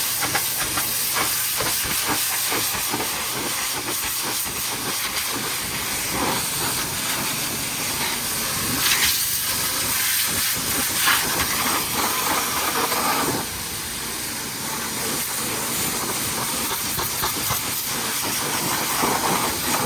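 High-pressure washer lance spraying, a steady hissing jet of water spattering against mud-caked truck surfaces; the spray gets a little quieter about two-thirds of the way through.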